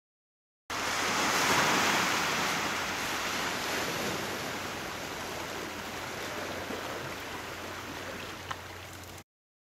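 Steady outdoor rushing noise that starts abruptly, is strongest about a second in and slowly fades, with one faint click near the end.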